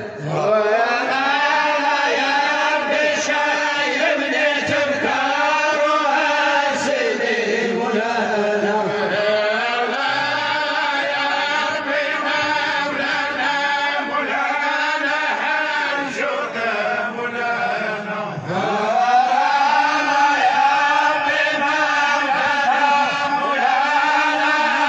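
Men's voices chanting a Sufi dhikr in long, drawn-out melodic phrases, breaking briefly for breath a few times.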